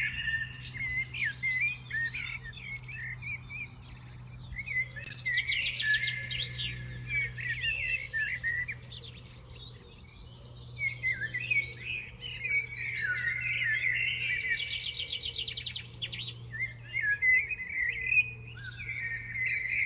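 Several songbirds chirping and singing at once, with many overlapping calls and rapid trills, over a faint steady low hum.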